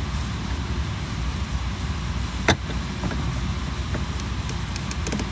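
Steady low rumble like a vehicle engine running nearby, with one sharp click about halfway through and a run of lighter clicks near the end from hand tools on engine parts.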